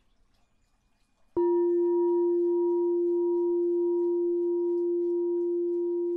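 Singing bowl struck once about a second in, ringing on in one clear sustained tone with fainter higher overtones; it marks the end of a silent meditation period.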